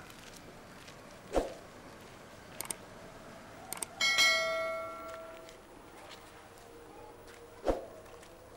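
A small metal bell struck once about four seconds in, ringing and fading out over a second or so. A dull thud comes before it and another near the end, with a few light clicks between.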